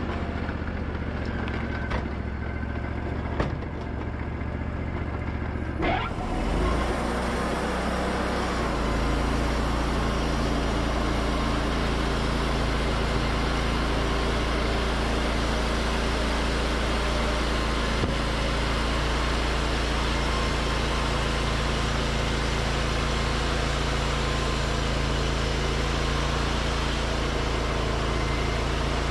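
Wood-Mizer LT40 sawmill: the engine revs up about six seconds in. Then the band blade saws through a white pine cant with a steady hiss over the engine, which runs evenly under load.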